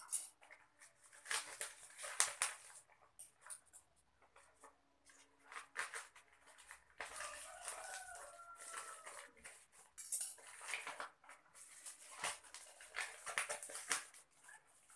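Plastic packaging and bubble wrap crinkling and rustling in irregular bursts as a parcel is unwrapped by hand. A faint pitched call rises and falls briefly about seven seconds in.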